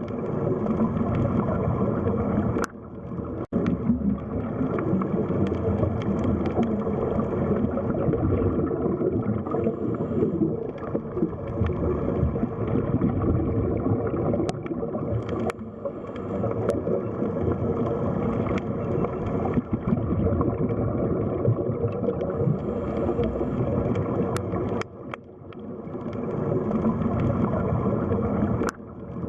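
Underwater sea ambience: a dense, low wash of water noise with a few faint clicks. It dips briefly about three seconds in and again near the end.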